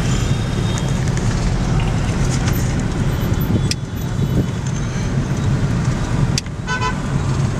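Dense street traffic of motor scooters and cars passing: a steady engine and tyre rumble, with a short horn beep near the end.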